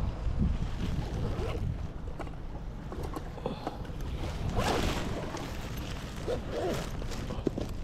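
Wind buffeting the microphone by the sea, a steady low rumble with scattered small clicks and knocks, and a louder rush of noise a little past halfway.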